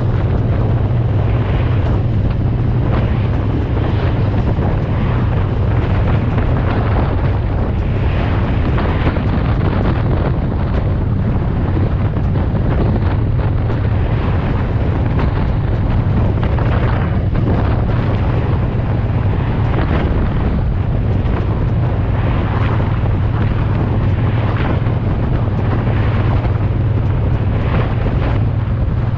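Wind buffeting the microphone over the steady low drone of a Triumph Bonneville T120's 1200 cc parallel-twin engine cruising at constant road speed.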